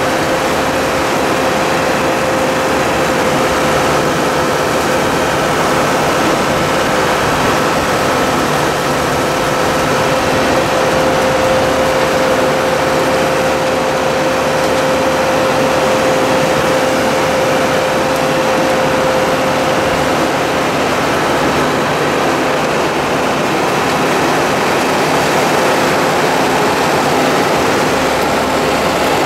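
Tractor engine and a tractor-pulled side-mount blueberry harvester running steadily while harvesting along a row of bushes: a continuous mechanical din, with a steady whine that fades out about two-thirds of the way through.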